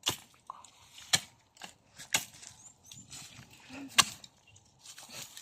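A series of sharp knocks, the strongest about once a second, with fainter knocks in between.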